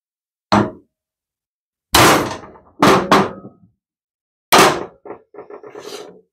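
Hammer striking a punch held against a bent valve in a Briggs & Stratton overhead-valve cylinder head, an attempt to straighten the valve: five sharp metal blows, two of them in quick succession about three seconds in. A run of lighter clinks and rattles follows near the end.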